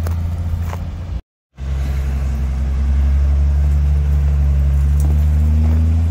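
Shaktiman truck's engine running steadily as it drives off-road under a full load of firewood, a low even drone. The sound cuts out completely for a moment about a second in, then the same drone resumes.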